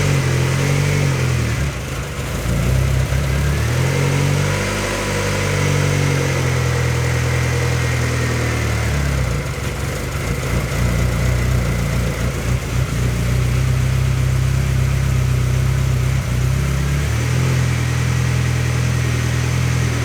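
Freshly rebuilt turbocharged Honda D16Z6 SOHC four-cylinder engine idling, its idle speed shifting up and down every few seconds. The owner takes this surge for the usual Honda sign of low coolant and air in the cooling system.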